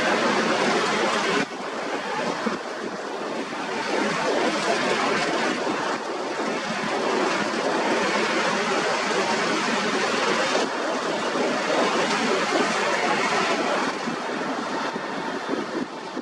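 Jet airliner engines at takeoff thrust heard from the airport perimeter, a steady rushing noise that drops suddenly about a second and a half in and again near the end.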